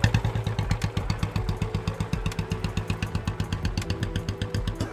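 Royal Enfield motorcycle's single-cylinder engine running at low revs, an even, rapid beat of firing pulses that stays steady throughout.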